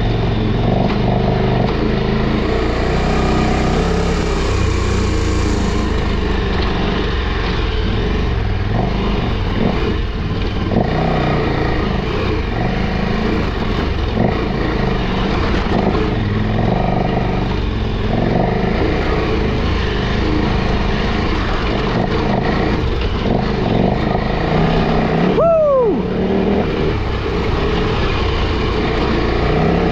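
KTM 1290 Super Adventure R's V-twin engine working up a steep, rough dirt climb, the revs rising and falling with the throttle. A short falling tone sounds about 25 seconds in.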